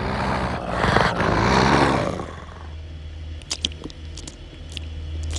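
Dogs snarling and barking loudly, which stops abruptly about two seconds in. A few sharp clicks follow over a low steady hum.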